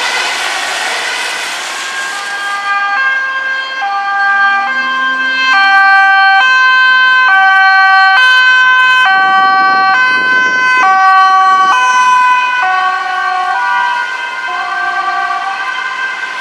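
Emergency vehicle's two-tone siren alternating between a high and a low pitch a little under once a second. It grows louder as the vehicle approaches, with engine and tyre noise swelling as it passes, then fades.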